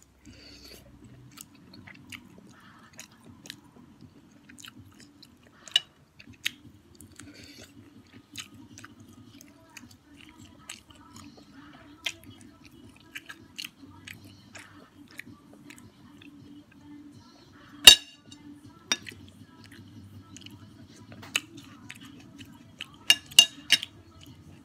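Close-up chewing and mouth sounds of someone eating shrimp from a Thai spicy shrimp salad, with many scattered sharp wet clicks and smacks. The loudest clicks come about two-thirds of the way in and in a quick cluster near the end.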